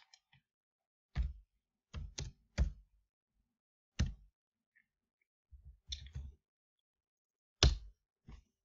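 Computer keyboard keystrokes and mouse clicks: a handful of short, sharp taps spaced irregularly, with a quick cluster around six seconds in.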